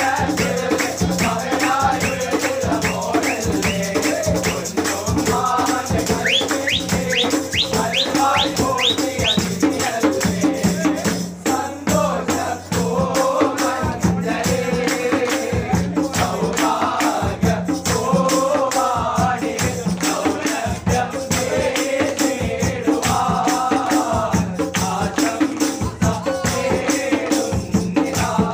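Kaimuttipaattu, a Mappila hand-clapping song: a group of men singing together over steady, rhythmic hand-clapping, with hand-played bongo-style drums and a jingling tambourine.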